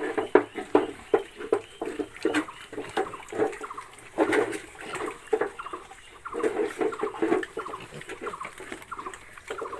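Pigs grunting in short, irregular bursts, with a few brief higher squeals among them.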